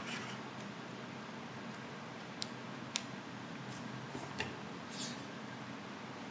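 Room tone with steady hiss and a faint low hum, broken by a few short, sharp clicks: the loudest comes about three seconds in, with others a little before it and over a second later.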